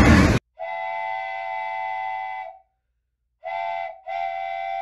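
Loud noisy crash-footage audio cuts off abruptly about half a second in. It is followed by a multi-tone train horn sounding three steady blasts: one long, one short, then another longer one.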